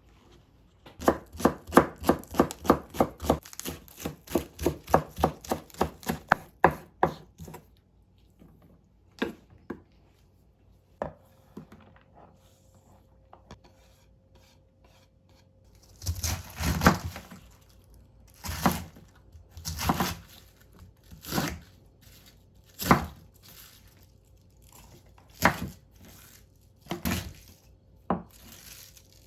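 Knife chopping on a cutting board: a quick, even run of about three strokes a second for several seconds, then a few scattered cuts, and later about ten slower, longer strokes.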